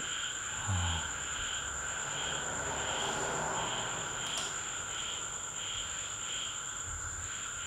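Insects chirping in a steady rhythm, about two chirps a second, over a continuous high whine. A brief low sound comes about a second in.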